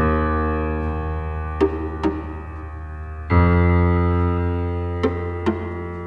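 Background music: slow, sustained keyboard-like chords, with a new chord coming in about three seconds in, and pairs of short ticks between the chords.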